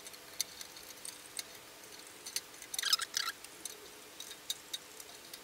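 Screwdriver undoing the screws of a perforated metal instrument cover: scattered small clicks and ticks, with a short louder scrape about three seconds in.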